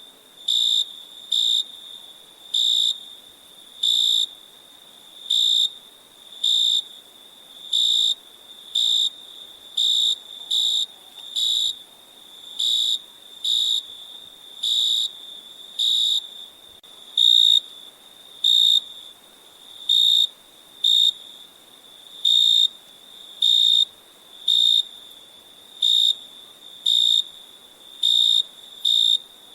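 A cricket chirping: short, high-pitched chirps repeated about once a second at slightly uneven intervals, over a faint steady background hiss.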